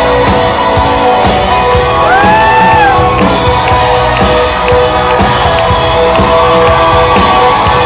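Loud live country band with fiddle and electric guitars playing, heard from within the crowd, with audience shouts and a whoop over the music.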